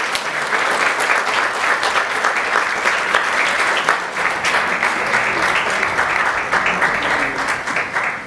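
Theatre audience applauding, a dense steady patter of many hands clapping that stops abruptly at the end.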